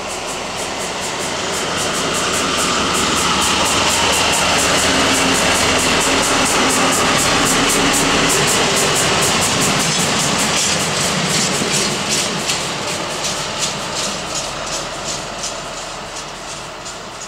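A V200 twin-engined diesel-hydraulic locomotive hauling a wagon passes by: its engine drone swells as it approaches, is loudest about four to nine seconds in, then fades as it moves away. In the second half the wheels click regularly over the rail joints.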